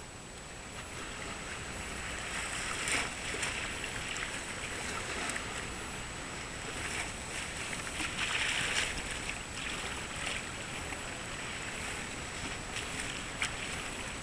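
Waterfront ambience at a harbour: a steady hiss of water and distant background noise that swells now and then, with a faint steady high-pitched tone above it.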